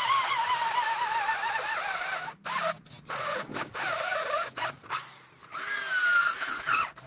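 Corded electric drill with a large wood bit boring into a thick wooden slab, its motor whine wobbling in pitch as it cuts. It starts suddenly and cuts out briefly several times before running again.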